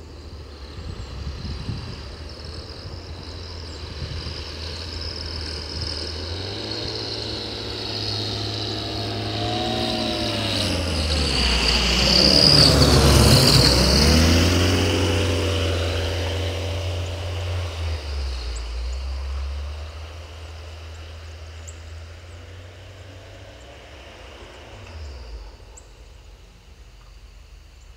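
Zenith 750 STOL light aircraft with a Viking 130 engine making a low pass: the engine-and-propeller drone grows steadily louder, peaks about halfway through with a clear drop in pitch as it goes by, then fades away.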